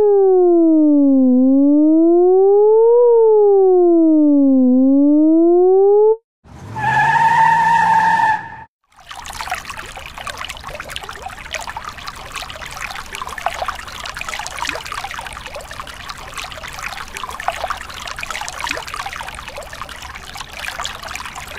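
A siren tone wails slowly down and up twice, then a brief steady tone sounds. After that, a thin jet of water sprays onto a mud-caked toy ambulance, with a steady hiss and spatter to the end.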